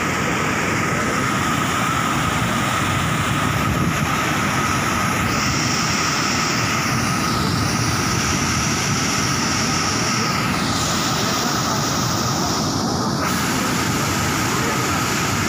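Floodwater rushing down a concrete canal and churning over a drop: a loud, steady rush of water.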